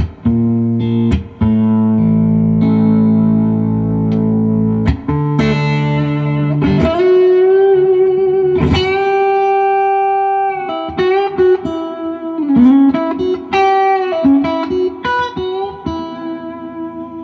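Duesenberg Starplayer Special electric guitar on its middle pickup position, played through a Fender '65 Deluxe Reverb amp: a few held chords, then from about five seconds in a single-note lead line with long sustained notes and string bends.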